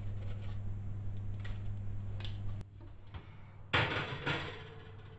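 Metal tongs clicking lightly on a wire-mesh sieve over a steady low hum, which cuts off about two and a half seconds in. About a second later a ceramic baking dish scrapes and clatters onto an oven's wire rack, the loudest sound, for under a second.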